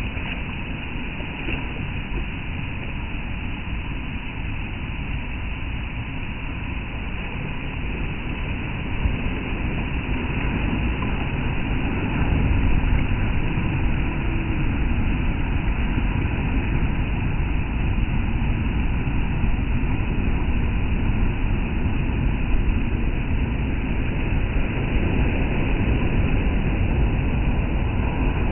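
Sea surf rumbling on the shore, a continuous deep wash of breaking waves that swells louder a little under halfway through.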